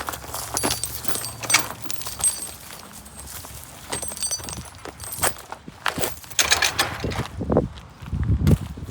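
Footsteps with scattered clicks and knocks, and a low rumble near the end.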